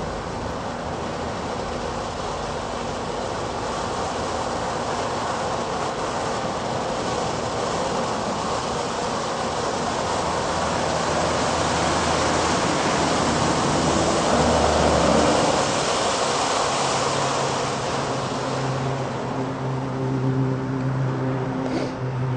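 Powerhouse Cone mini cone fountain firework burning: a steady hiss of the spark shower that swells in the middle and dies down over the last few seconds as the fountain burns out.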